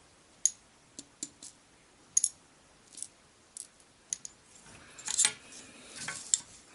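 Metal tweezers ticking against small metal paint dishes as tiny wooden pulley blocks are picked out, in scattered light clicks. A denser clatter about five seconds in as the metal dishes are shifted across the paper-covered table.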